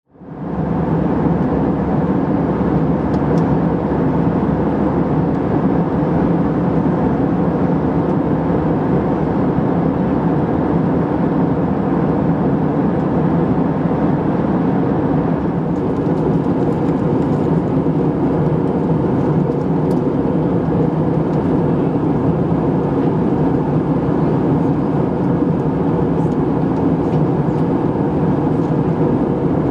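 Steady cabin noise inside an Airbus A320 in flight: a low engine drone under a constant rush of air. It fades in over about the first second, then holds at an even level.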